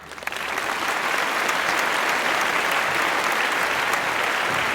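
Crowd applauding, many hands clapping, swelling in over the first half second and then holding steady.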